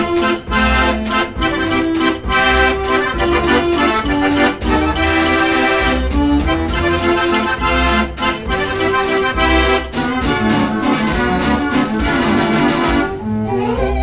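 The 'Jeanneke Mortier', a 92-key Mortier orchestral dance organ, playing a waltz from a vinyl LP: pipe and accordion voices carry the tune over a steady beat of percussion strokes.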